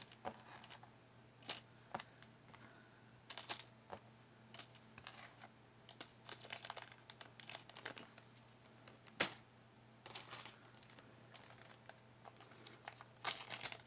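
Earrings and small jewelry pieces being handled: scattered light clicks and crinkling, the loudest click about nine seconds in, over a faint steady hum.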